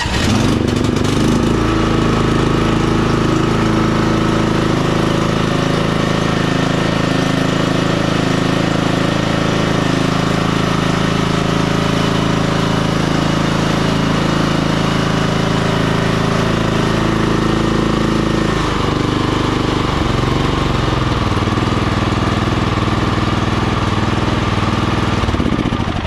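A Cub Cadet CC30 riding mower's MTD 4P90-series single-cylinder engine catches at the very start and runs steadily on its new carburetor. It starts and runs properly now, where before it cranked but would not start. About two-thirds of the way through, the engine note drops and it settles to a lower speed.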